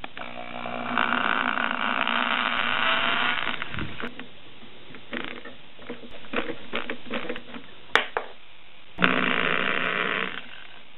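Cordless drill boring through a 3D-printed plastic bracket into the frame board: the motor whine rises as it spins up, runs for about three seconds, and a second, shorter drilling run comes near the end. Light clicks and taps, with one sharp click, fall between the two runs.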